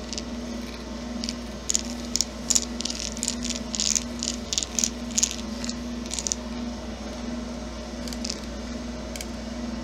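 Screwdriver turning a motor-mount screw in an RC crawler's plastic chassis: irregular small clicks and scrapes, thickest in the middle, over a steady low hum.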